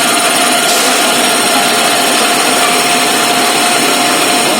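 Metal-turning lathe running, a steady machine whine over dense hiss, with the high hiss growing a little brighter about a second in.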